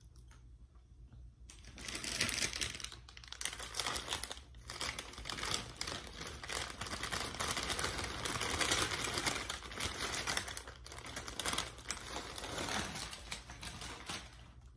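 A plastic bag of Flamin' Hot Cheetos crinkling as it is handled and tipped, with the Cheetos spilling out onto a paper burrito wrapper. It makes a dense crackle that starts about two seconds in and stops shortly before the end.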